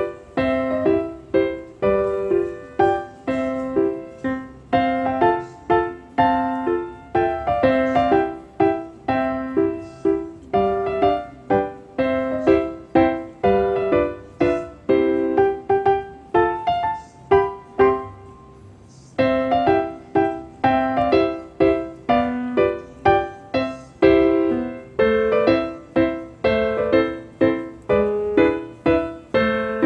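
Background music: a light piano melody of struck notes, each fading away, with a short pause about two thirds of the way through.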